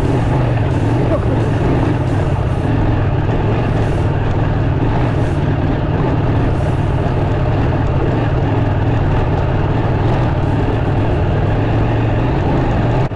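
KTM 790 Adventure R motorcycle's parallel-twin engine running steadily while riding, with a constant low hum.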